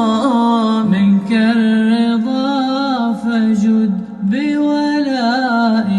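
Male voice singing an Arabic nasheed, ornamenting the melody in long melismatic runs, then settling onto a held note near the end.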